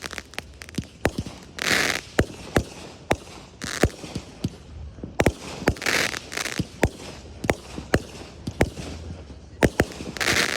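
Fireworks display: a rapid, irregular series of sharp bangs from exploding shells, with short noisy rushes between them about every two seconds.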